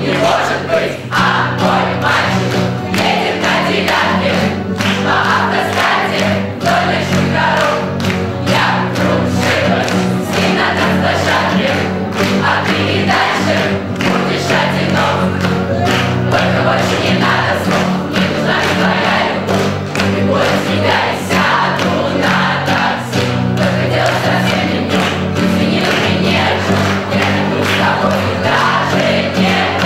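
A large group of teenagers singing a song together in chorus, accompanied by two acoustic guitars and an upright piano.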